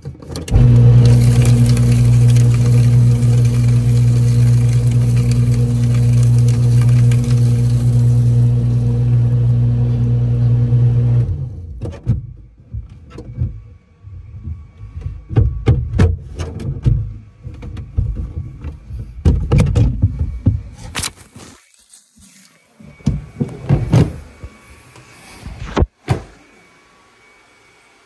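Staples paper shredder's motor running with a loud steady hum, which stops about eleven seconds in. It is followed by a string of irregular short noisy bursts and sharp clicks.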